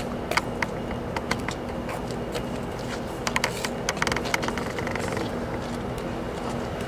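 Irregular hard-soled footsteps of several people tapping on a brick walkway, over a steady low hum.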